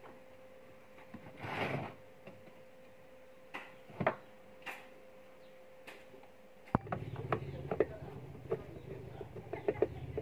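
Scattered light clicks and knocks of a rice cooker being handled, with a short rustling scrape about one and a half seconds in. About seven seconds in the background changes abruptly to a steady low hum under rapid small clicks, as a screwdriver works a screw in the cooker's base.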